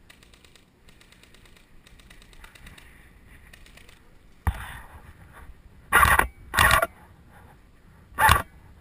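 Airsoft electric rifle fire: three short bursts, two close together and a third about two seconds later, each lasting a fraction of a second. A single sharp knock comes about halfway in, before the first burst.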